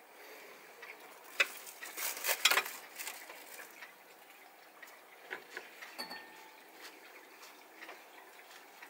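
Light clicks and rustles of hands handling food, dropping fruit chunks onto a tortilla and folding it on a wooden cutting board. A cluster of louder clicks and rustling comes between about one and three seconds in, and a brief faint high squeak about six seconds in.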